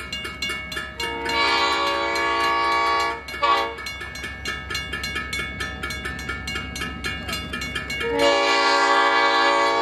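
A train horn sounds a long blast, a short blip, and after a pause of a few seconds another long blast, over the rapid, even ringing of a railroad crossing bell and the low rumble of the train.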